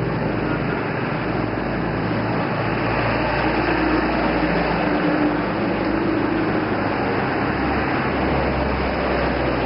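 Steady urban background noise: a continuous low mechanical hum under an even wash of street noise, with no distinct events.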